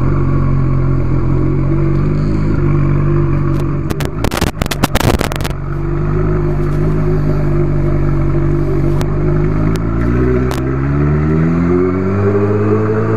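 Honda CB1000R's inline four-cylinder engine running at low, steady revs, with a burst of clicks and clatter about four seconds in. Near the end the revs climb smoothly as the bike accelerates.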